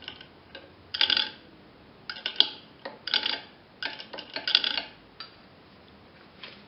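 Pliers hanging from a wire hook on a hard drive head actuator arm clinking and rattling against the hook and frame as the arm moves. There are five short metallic bursts with a ringing tone, about a second apart, and the last one is faint.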